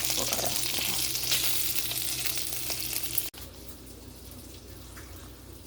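Bacon sizzling and crackling in a hot skillet. About three seconds in the level drops suddenly and the sizzle goes on much quieter.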